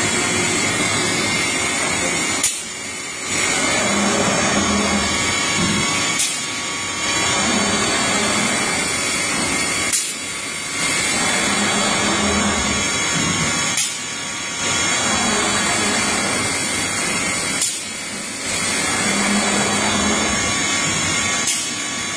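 Heavy-duty CNC router's spindle and drill heads machining a panel: a steady running noise broken by a sharp click about every four seconds, each followed by a brief dip in the sound.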